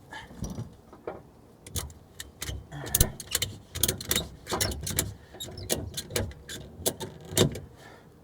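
Ratchet strap being cranked tight: an irregular string of sharp clicks, a few a second, as the strap is cinched down over a loaded water tank.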